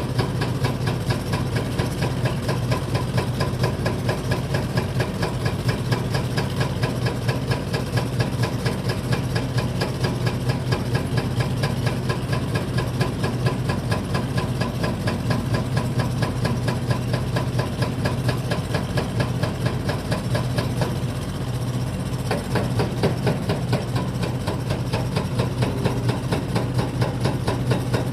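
Diesel engine of a heavy machine running steadily at low speed with a fast, even knocking beat, briefly easing off about three quarters of the way through.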